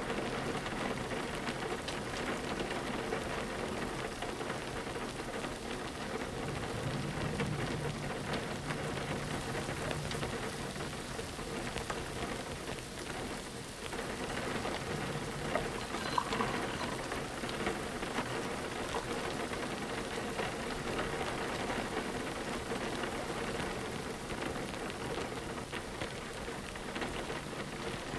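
Steady rain pattering on a window pane, a dense even patter of drops.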